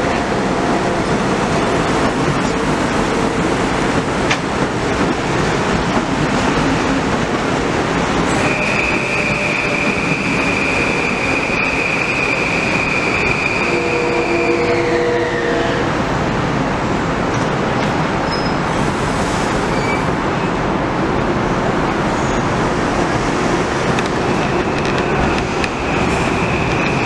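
Metro-North M8 electric railcar trains running through the station, a steady loud rumble of wheels on rail throughout. From about eight seconds in a high steady squeal sounds over it; it slides down in pitch around fifteen seconds and comes back near the end.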